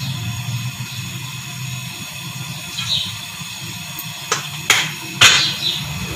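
Quiet kitchen handling at a stovetop pot over a steady low hum: three sharp clicks and knocks between about four and five and a half seconds in, the last one loudest, as the cooking-oil container and the pot are handled after the oil is poured.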